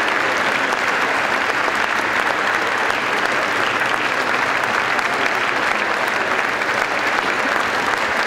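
Concert audience applauding steadily, a dense unbroken clapping that fills the hall.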